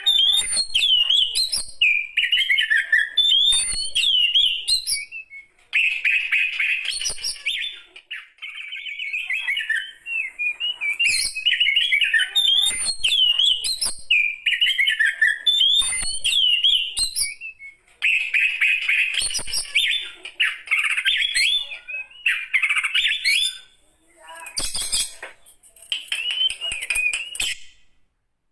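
A mature Oriental magpie-robin (kacer) singing loudly: a run of varied, rich whistled phrases with quick up-and-down sweeps and high chips, broken by short pauses.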